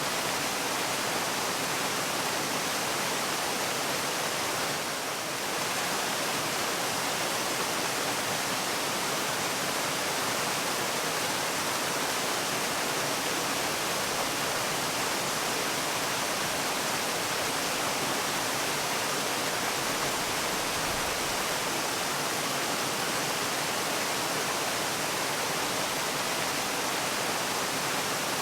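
Waterfall: the steady rush of falling water, an even hiss with no let-up.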